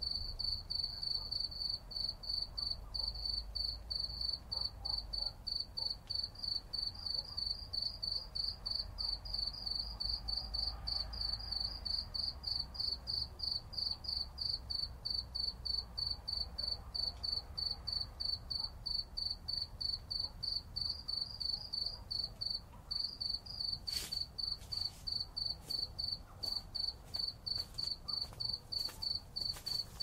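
An insect chirping steadily in a high-pitched, evenly pulsed call, about three times a second, with a few faint clicks late on.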